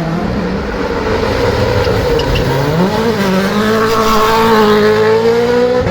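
Rally car engine running hard at high revs: its pitch sags in the first second or so, climbs again about three seconds in, then rises slowly and holds high.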